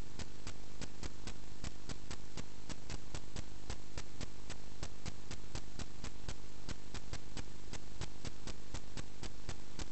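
Sewer inspection camera's audio feed: a steady hum with even, sharp ticks about four to five times a second, the kind of noise the camera line carries while the camera head sits still in the pipe.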